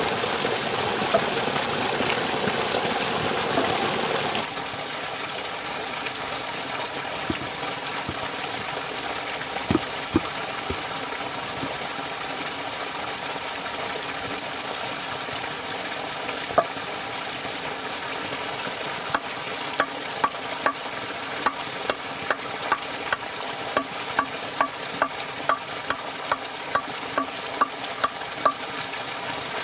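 Water pouring from a bamboo pipe into a wooden trough for the first few seconds, then a quieter steady hiss with a few single knocks. From about two-thirds of the way in, a small hatchet taps into a green log, about two light strikes a second.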